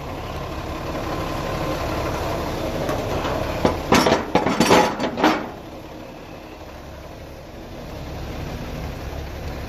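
Concrete mixer truck engine idling steadily, with a quick run of metal clanks and knocks about four to five seconds in as a metal extension chute is handled against the truck's chute bracket.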